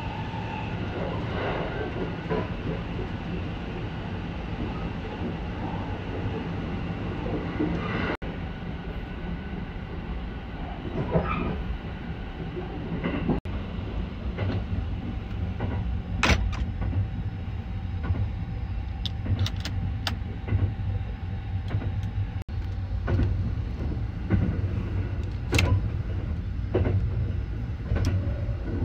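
Running noise of the Sunrise Seto sleeper train (285 series electric multiple unit), heard inside a sleeper car: a steady low rumble and hiss, with sharp clicks and knocks from about halfway through.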